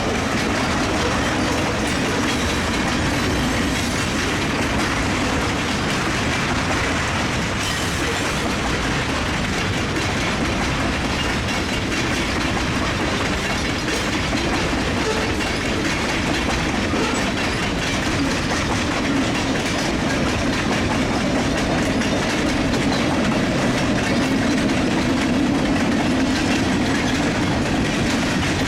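Freight train cars rolling past on the rails, a steady, unbroken noise of wheels on track.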